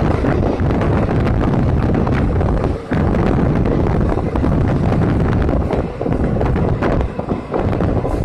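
Diesel train running along the line: a loud, steady low rumble with scattered clicks and wind buffeting the microphone. The sound drops briefly about three seconds in.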